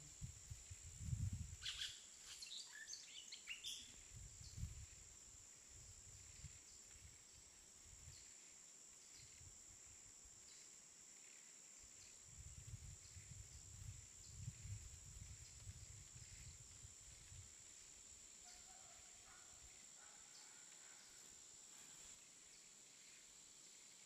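Faint gusts of wind rumbling on the microphone, rising and falling several times, with a few short bird chirps about two seconds in and a thin steady high tone underneath.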